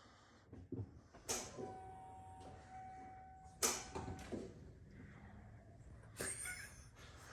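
A few faint clicks and knocks, with a faint steady tone for about two seconds in the middle. No starter cranking and no engine running: the truck does not respond to the start attempt.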